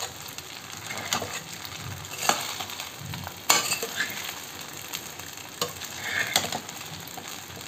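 Sago pearls and crushed peanuts being stirred in hot oil in a stainless steel pan with a metal spoon: a steady frying sizzle, with scrapes and several sharp clinks of the spoon against the pan.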